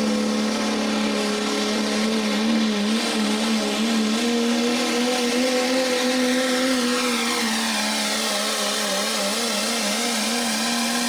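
Turbocharged Cummins diesel of a pro stock diesel pulling truck at full power under heavy load while pulling the sled. The engine note is held high and steady and wavers quickly in pitch at times, with a faint high whine far above it.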